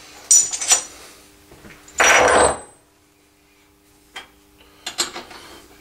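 Steel end mills, a two-flute cutter and a multi-flute cutter, being picked up off a steel milling vise: metal-on-metal clinks with a short ring about half a second in, a louder rattle about two seconds in, and a few lighter clicks near the end.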